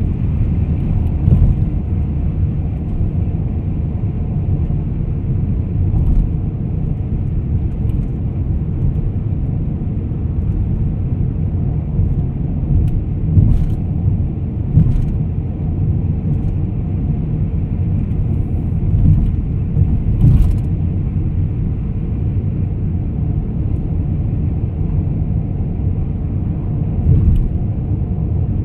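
Steady low rumble of a car in motion on a highway, heard from inside the cabin, with a few brief clicks around the middle.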